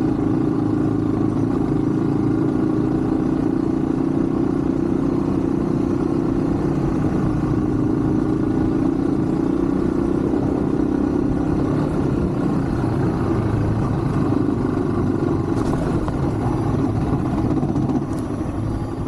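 Yamaha WR155 single-cylinder motorcycle engine running steadily while riding, dropping in level near the end.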